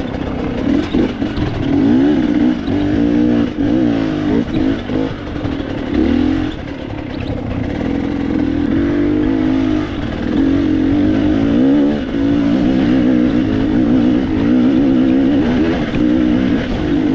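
Dirt bike engine running under the rider's throttle on a trail, its note rising and falling again and again as it revs and eases off; the carburetor has just been tuned.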